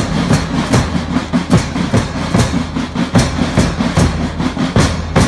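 School marching band's snare drums and bass drum beating a steady march rhythm, with strong beats about two and a half times a second over a steady low hum.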